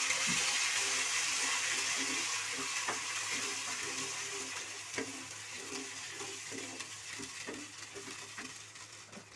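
Tomato and ginger puree sizzling in hot oil with cumin and curry leaves in a non-stick kadhai as it is stirred with a spatula. The sizzle is loudest at first and dies down steadily, with a few light knocks of the spatula against the pan.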